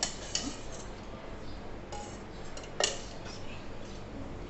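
Metal kitchen utensils clinking and knocking a few times, the loudest knock nearly three seconds in, over a faint steady hum.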